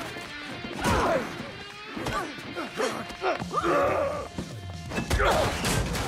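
Action-film fight sound mix: music under a series of punch and body-hit impacts, about five hard hits spread across the few seconds.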